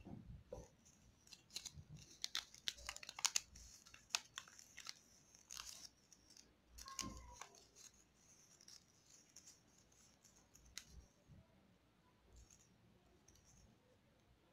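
A sheet of origami paper being folded and creased by hand: faint, crisp crackles and rustles, thick for the first six seconds, a brushing sweep about seven seconds in, then only a few scattered clicks.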